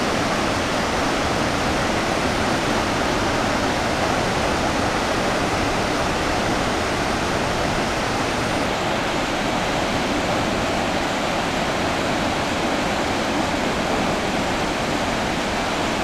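Chachai Falls, a broad waterfall plunging into a deep gorge, giving a steady, even rush of falling water.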